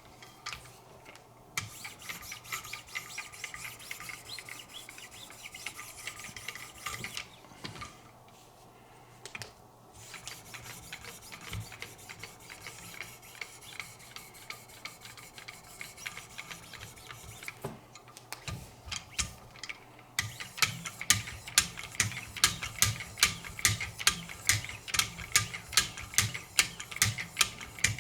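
Wicked Edge sharpening system's 3000-grit stones rubbing along a knife edge in repeated strokes, with a pause of about two seconds partway. About two-thirds through, the strokes turn quicker and louder, about three a second.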